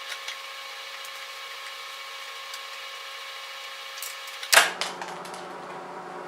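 Old plastic beam adjusters of a BMW E39 headlight being unscrewed and handled, dried out and brittle: a few light plastic clicks, then a sharp loud click about four and a half seconds in, followed by a few quicker clicks. A steady whine of several tones sits in the background until the loud click.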